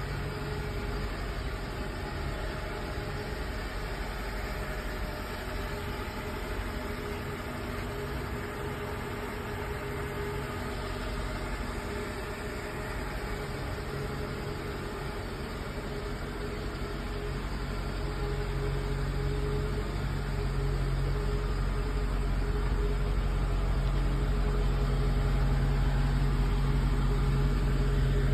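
Mercedes-Benz R129 SL 500's 5.0-litre V8 idling steadily after a cold start, growing louder over the last third.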